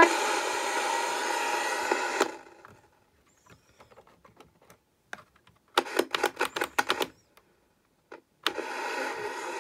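Hiss and static from the speaker of a 1984 Boots/Panasonic TV-clock-radio, cut off suddenly about two seconds in. A quick run of plastic clicks and rattles follows as the set's switches and case are handled, and the hiss comes back near the end.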